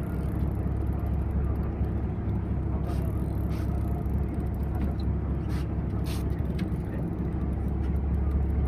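Fishing boat's engine running steadily, a constant low hum, with a few faint short ticks on top.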